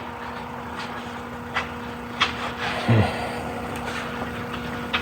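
A handful of sharp clicks and light knocks from parts and tools being handled in the car's engine bay, the loudest a dull thump about three seconds in, over a steady low hum.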